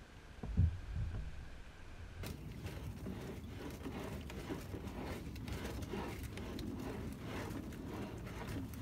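A couple of dull thumps, then close rustling and handling noises as a hand rummages through a kayak's open deck hatch, among gear and water that has leaked into the hull.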